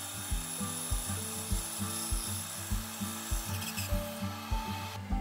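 Benchtop band saw cutting through a block of wood: a steady, dense hiss of the blade in the wood that stops abruptly about five seconds in.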